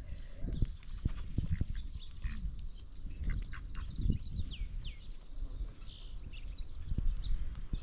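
Small birds chirping in short high calls, with a few quick falling whistles a few seconds in, over low rumbling and bumping from wind and handling on the microphone.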